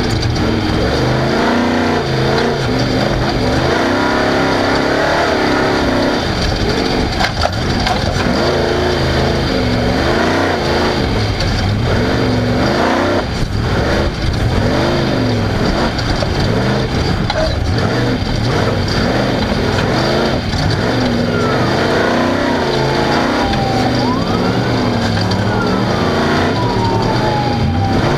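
Off-road race vehicle's engine running hard, its pitch climbing and dropping over and over as the throttle is worked, over a constant heavy rumble. Near the end a couple of thin whistling tones glide down and then rise and fall.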